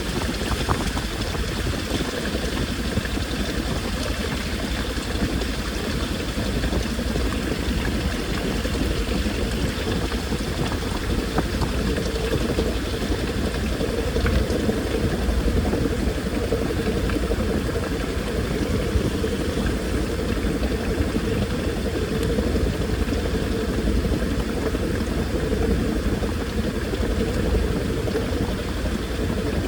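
Washing machine running: water sloshing in the drum over a steady motor hum.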